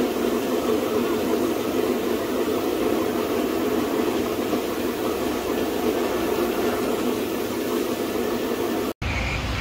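Gravity-feed paint spray gun hissing steadily as it sprays, over the steady running of the air compressor that feeds it. It cuts off suddenly near the end.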